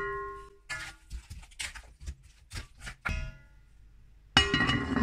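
Glass pot lid clinking and ringing against a metal pot as it is handled and set back on, with irregular knocks and a loud clatter near the end.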